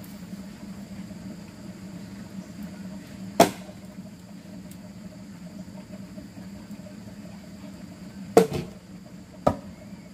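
Axe chopping into firewood logs: three sharp strikes, about three seconds in, eight seconds in and nine and a half seconds in, over a steady background hum.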